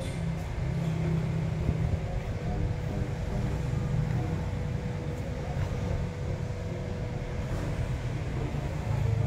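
Steady low mechanical rumble, like a motor running, with a faint steady hum above it. It grows a little louder near the end.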